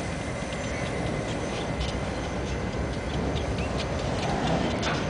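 Freight train of autorack cars rolling past on the track below: a steady rumble of wheels on rail with light, irregular clicking.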